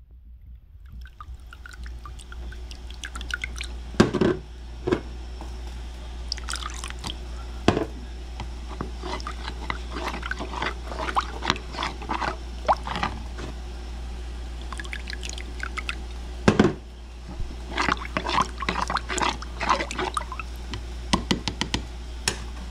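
Metal spoon stirring a cornstarch, water and soy sauce slurry in a plastic bowl: liquid sloshing with frequent irregular clinks and scrapes of the spoon against the bowl and a few louder knocks. A steady low hum runs underneath.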